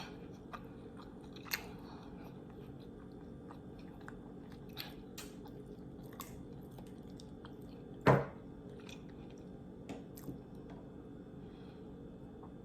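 A person chewing food quietly, with small mouth clicks and one louder click about eight seconds in, over a low steady hum.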